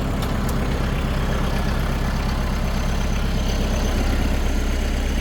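Front-loader tractor engine running steadily at idle, a low even hum, with two faint clicks near the start.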